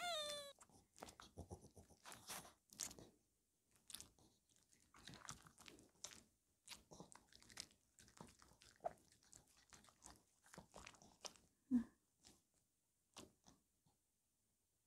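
Maltese dog biting and chewing a fresh strawberry: faint, wet crunching in scattered small bites, with a short falling squeak right at the start.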